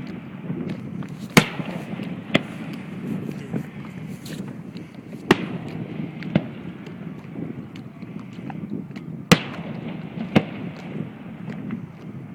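Fireworks bursting: three loud bangs about four seconds apart, each followed about a second later by a quieter bang, over a steady background noise.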